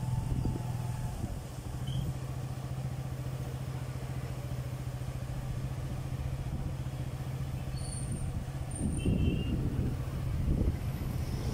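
A motor vehicle engine running steadily at a low hum, with road traffic passing and growing louder about nine seconds in. A few short bird chirps sound briefly near the end.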